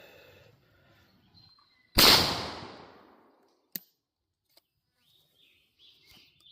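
A single shotgun shot firing 2 3/4-inch Fiocchi 00 buckshot about two seconds in, with a loud crack and a rolling echo that dies away over about a second. A short sharp click follows a couple of seconds later.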